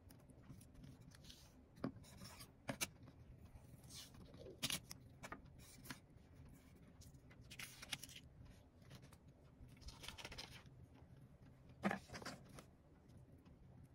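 Faint rustling, scraping and small taps of masking tape and paper being handled on a tabletop: tape pulled from its roll and pressed and rubbed down onto a paper card tag, in scattered short bursts.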